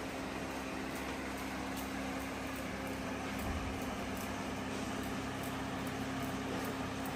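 Electric fan running steadily: a constant motor hum holding one pitch, with an even hiss of moving air over it.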